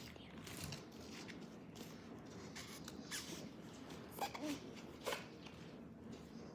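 Faint, scattered taps and rustles of hands handling small objects, with a few slightly louder knocks about four to five seconds in.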